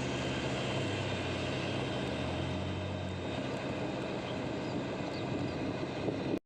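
Heavy machinery engine running steadily at a constant level, then cut off abruptly just before the end.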